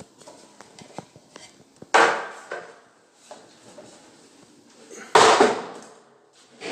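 Two loud wooden knocks, about three seconds apart, each trailing off with a clatter over about a second, with light clicks and handling noise between them.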